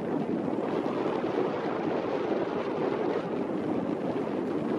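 Steady rushing outdoor noise of wind and water, even throughout with no distinct events.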